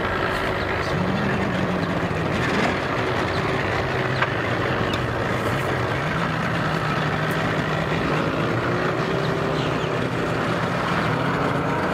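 Boat outboard motor running under throttle while the boat is powered up onto its trailer, with water churning behind it; the engine hum shifts up and down in pitch as the throttle changes.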